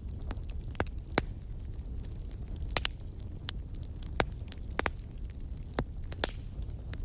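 Wood fire burning in a fireplace with a steady low rumble, broken by sharp, irregular crackles and pops, the loudest about a second in and again near the middle.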